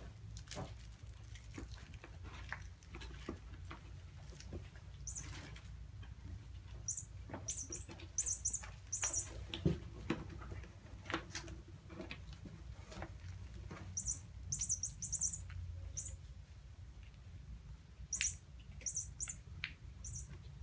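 Kittens' paws and claws on a cardboard incline cat scratcher: soft taps and patter, with several clusters of short scratching strokes in quick succession. A low steady hum runs underneath.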